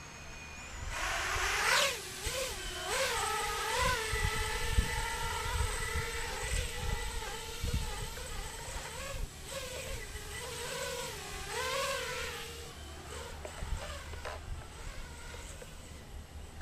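Brushless motors of an FPV quadcopter on a 4S lipo, spinning up about a second in and then hovering with a whine. Its pitch wavers up and down as the throttle and attitude change. The whine fades out near the end.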